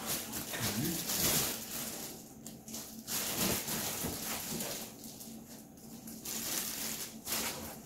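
Clear plastic wrapping crinkling and rustling as it is pulled and handled, with the foam packing insert shifting against it, in irregular bursts.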